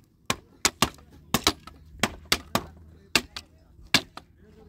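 Hammer blows driving nails into wooden pallet slats: about a dozen sharp strikes at uneven intervals, some in quick pairs.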